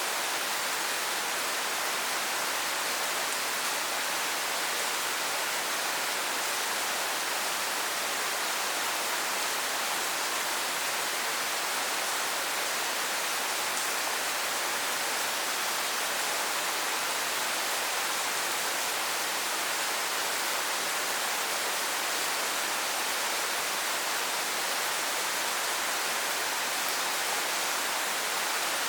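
Steady rain falling, a constant even hiss with no breaks or changes.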